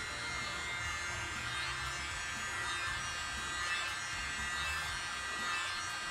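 Small handheld electric air blower running steadily with a high motor whine, blowing wet acrylic paint outward across a coaster tile.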